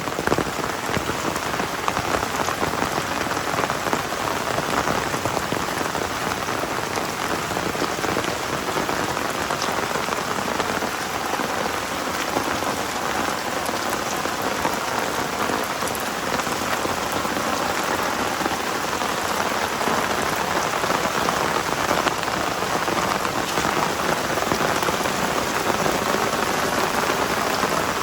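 Heavy rain falling steadily, a dense even patter of drops on the surfaces all around.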